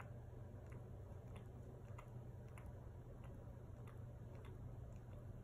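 Near silence: low room hum with faint, irregular ticks, about two a second.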